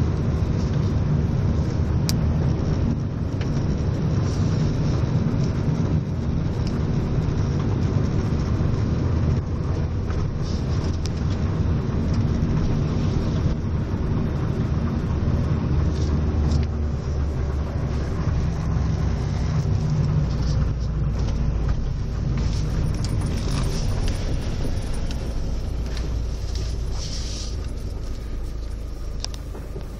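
Steady low rumble of a car driving slowly, growing a little quieter near the end.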